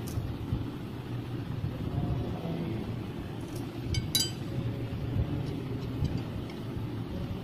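Wrench on a long extension tightening the diesel fuel injection pump's mounting bolts, with a few light metal clinks about four seconds in, over a steady low rumble.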